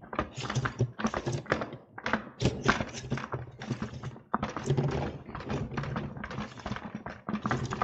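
Dry loose livestock mineral and salt rattling and scraping inside a container as it is handled and stirred, a dense run of small taps and knocks.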